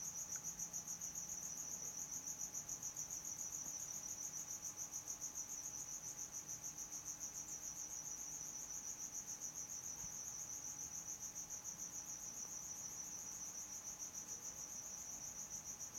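A cricket chirping in a steady, high-pitched trill that pulses rapidly and evenly throughout, over a faint low hum.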